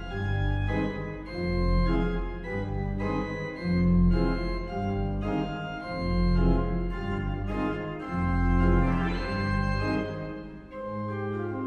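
Pipe organ playing loud low chords about every two seconds under quick notes in the upper voices, easing into lighter playing near the end.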